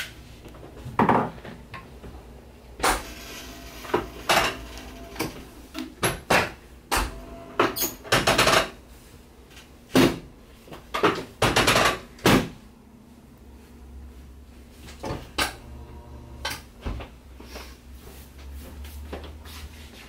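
Chiropractic table clunking and clicking under repeated hand thrusts to the low back and pelvis: about ten sharp knocks in the first dozen seconds, some with a short metallic ring, then lighter knocks.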